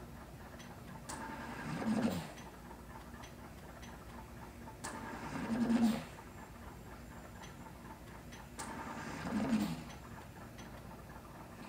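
Ventilator-assisted breathing, with about one breath every four seconds. Each breath swells for about a second and ends in a brief low hum before falling away. Faint ticks sound between the breaths.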